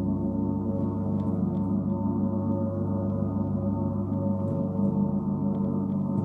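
Gong sounding as a sustained drone: many overlapping steady tones humming evenly with a slow pulsing, and a few faint light clicks above.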